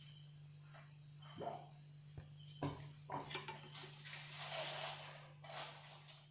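Faint, steady, high-pitched insect chirring under a low hum, with a few soft knocks and rustles of the camera being handled.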